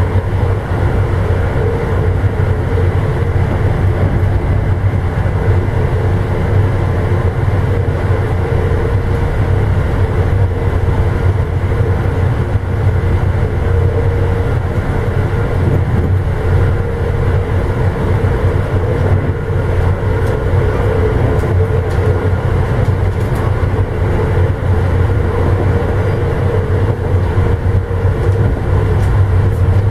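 Amtrak Illinois Zephyr passenger car running along the track, heard from inside the car: a steady low rumble with a steady hum above it.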